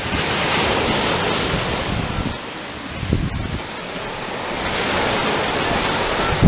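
Ocean surf breaking and washing up the shore, rising and falling with the waves and dipping a little midway.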